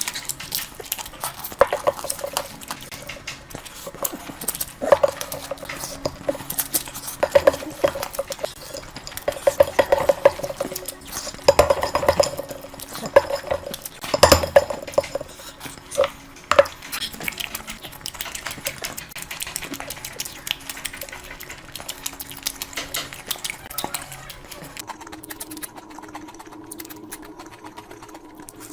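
Close-miked eating sounds: chewing and wet squishing of curry and rice, with small clinks against a plate, coming in irregular bursts. Near the end the eating stops and a steady low hum takes over.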